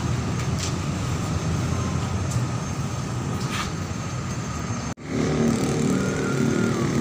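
Steady outdoor rumble of background traffic. It cuts out briefly about five seconds in, then comes back with an engine-like hum.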